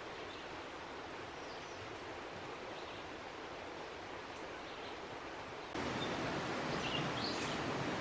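Steady outdoor background noise, an even rushing hiss, which jumps louder about six seconds in; a few faint, short, high bird chirps come just after the jump.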